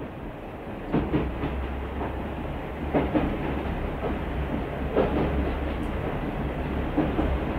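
Train running on rails: a steady low rumble with double clacks of the wheels over rail joints about every two seconds.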